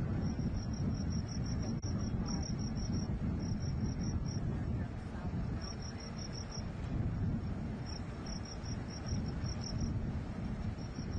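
Insects chirping in quick runs of about five high chirps a second, with short gaps between runs, over a steady low rumble from the burning gas pipeline.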